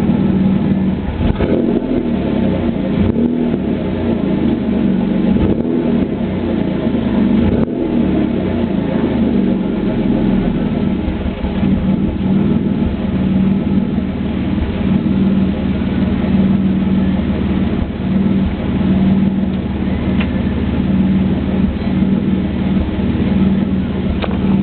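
Chevrolet Camaro's 3.8-litre V6 idling, with a few light blips of the throttle in the first several seconds. The exhaust breaks up now and then, a misfire from a bad spark plug.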